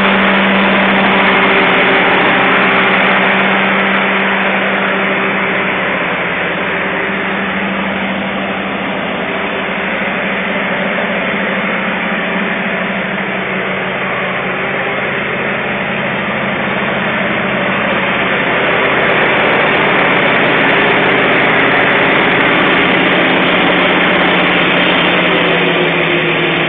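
Mobile crane truck's heavy diesel engine running steadily at a constant speed, a little quieter in the middle.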